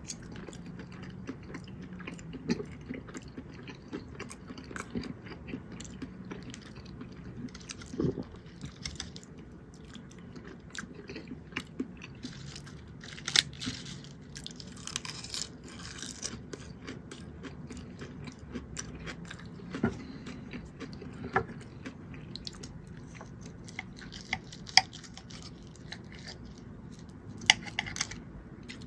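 A person chewing and biting food close to the microphone: moist mouth sounds with many scattered sharp clicks, a few louder than the rest.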